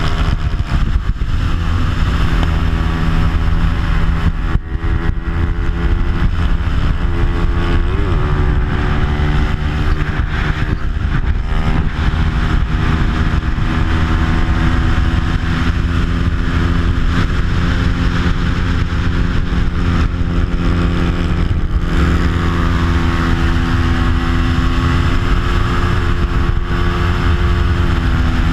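Onboard sound of a Bajaj Pulsar 200's stock single-cylinder four-stroke engine with an aftermarket exhaust, run hard at racing revs, its pitch rising and falling as the rider works through the gears and corners, over a steady rush of wind noise.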